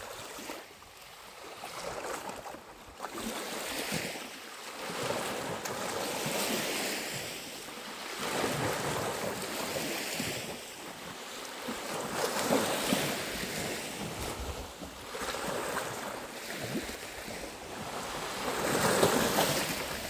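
Small sea waves lapping and washing onto the shore, swelling and fading every few seconds, with wind on the microphone.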